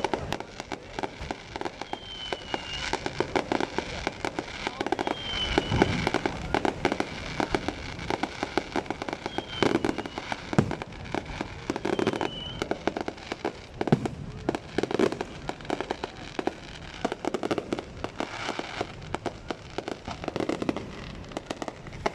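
Fireworks going off in a dense, continuous barrage of crackles and bangs, with short high whistles every few seconds.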